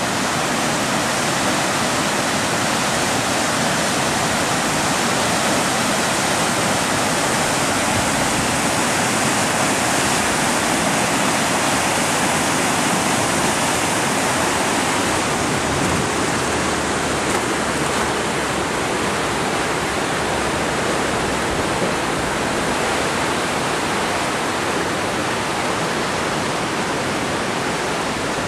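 Whitewater rushing steadily through the concrete channel of a canoe-kayak slalom course, a constant hiss of rapids.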